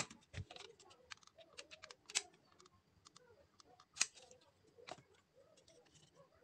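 Hard plastic parts clicking and knocking as a small fan motor with a plastic propeller is handled and fitted into a black plastic blower housing: many small clicks with four louder clacks.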